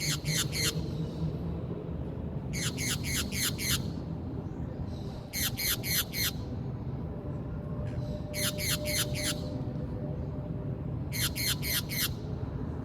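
Green parakeet calling in short bursts of four or five rapid, sharp squawks, one burst about every two and a half to three seconds, over a steady low rumble in the background.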